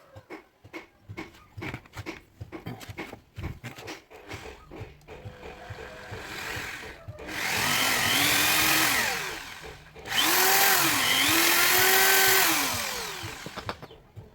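Light clicks and knocks of metal being handled, then a handheld power tool runs in two bursts of a few seconds each, its motor pitch dipping and rising as it is pressed into the work on steel.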